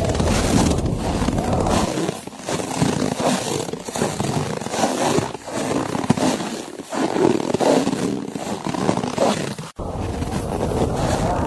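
Blizzard wind gusting through a snowy forest as a rushing, unpitched noise with a deep rumble that eases off in the middle and comes back. The sound cuts out sharply for a moment near the end.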